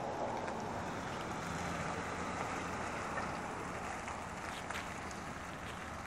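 Steady rush of road traffic noise, without a clear single vehicle passing.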